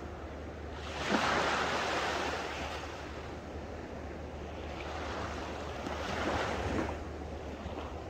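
Small, calm waves washing up on a coral-sand beach in two surges: one swelling about a second in and fading over the next two seconds, and a second building from about five seconds in that stops suddenly near seven seconds.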